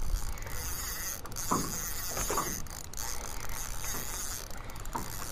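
Spinning fishing reel being cranked, its gears whirring, with a few short squeaks about two seconds in. The rod is bent while it is cranked, so the reel is working under load, reeling in a hooked fish.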